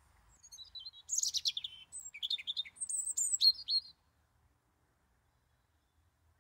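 European robin singing: a run of quick, varied, high warbling phrases that stops about four seconds in.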